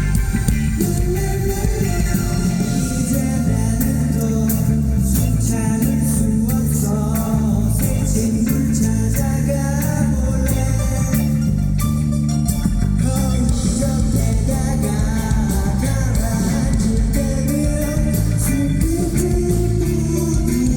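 Live band music with guitar to the fore, playing steadily without a break.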